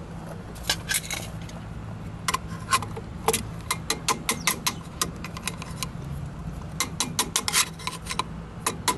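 Screwdriver turning the cable-clamp screws on a steel electrical junction box: light metallic clicks and scrapes of the tip and the box, irregular and coming in quick runs, over a low steady hum.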